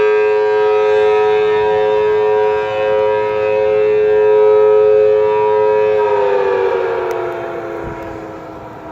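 Federal Signal Thunderbolt 1000T dual-tone tornado siren sounding a steady two-note chord. About six seconds in, both tones start falling in pitch and the sound fades as the siren winds down.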